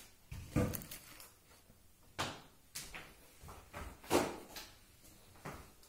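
Handling noise from painted panels being moved and set down: about half a dozen separate knocks and bumps with some rubbing between them, the loudest about half a second in and about four seconds in.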